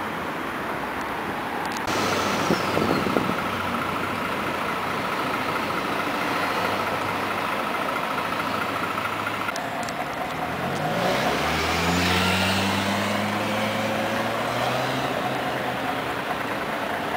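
City bus running, with a steady whine for several seconds. About ten seconds in, the engine pitch rises as it pulls away, then holds steady.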